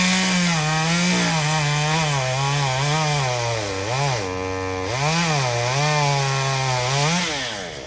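Chainsaw running at high revs while cutting pecan wood, its pitch wavering and dipping as the chain loads up in the cut, then falling away as the throttle is released near the end.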